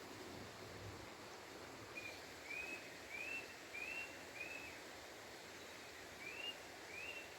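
A bird calling a run of short whistled notes, each rising then falling, about two a second. It pauses for a second or so, then starts a second run near the end. Faint outdoor background hiss lies under the calls.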